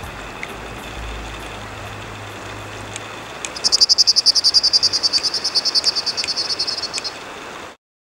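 Steady rush of open river water with a faint low rumble. About three and a half seconds in, a loud, rapid, high-pitched trill of about ten pulses a second runs for some three and a half seconds. Everything cuts off suddenly near the end.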